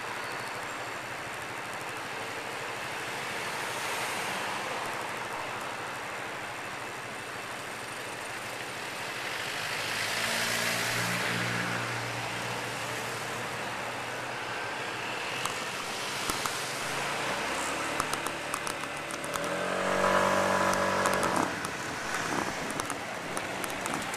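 Busy city street traffic: cars, vans and buses running and passing at a junction. An engine pass comes through clearly about halfway through, and a louder engine, pitched and rising, pulls away in the last third.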